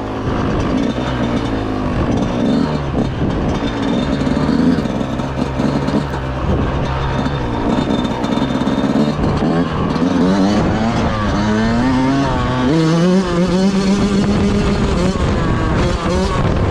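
Yamaha YZ125 two-stroke dirt bike engine being ridden, its pitch rising and falling with the throttle and gear changes, climbing to a higher held pitch near the end.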